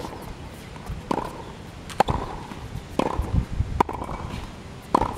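Tennis ball struck with rackets in a quick volley exchange: a sharp, ringing pock about once a second, five in all.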